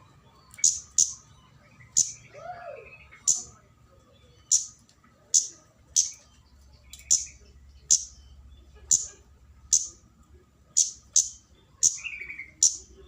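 Kemade flowerpecker giving sharp, very high 'tsit' call notes, roughly one a second and sometimes in quick pairs. This is loud, excited calling meant to answer and draw in a rival.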